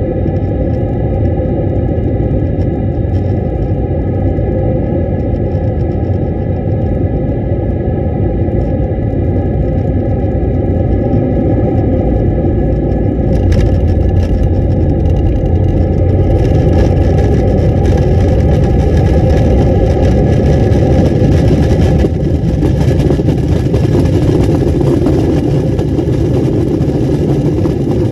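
Airliner cabin noise beside the wing on landing: steady jet-engine rumble with several fan whine tones. About halfway there is a short knock as the plane touches down, then a louder, hissier rush as it rolls out on the runway.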